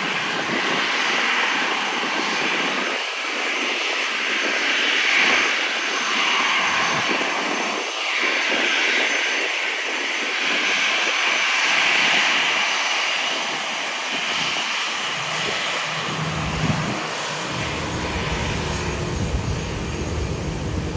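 Jet engines of a four-engine Airbus A340 airliner taxiing past: a steady hissing whine at low power that swells and eases as the aircraft rolls by. A deeper rumble joins near the end.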